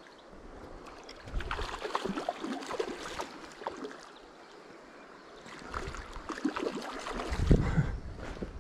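A hooked trout splashing and thrashing in shallow water at the river's edge, in irregular bursts. A low buffet hits the microphone near the end.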